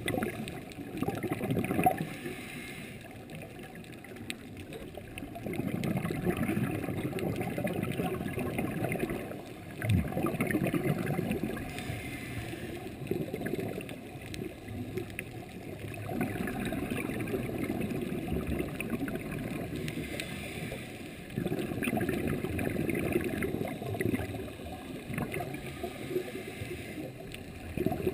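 Muffled underwater bubbling and gurgling, as of a scuba diver's exhaled bubbles, coming in swells of a few seconds with quieter stretches between breaths.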